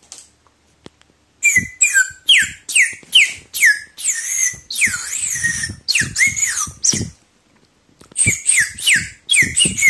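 A bent-straw whistle blown in a quick series of bird-like chirps, each a fast downward glide in pitch, about two or three a second, with a few longer warbling notes. The chirps start about a second and a half in and stop for about a second before going on again.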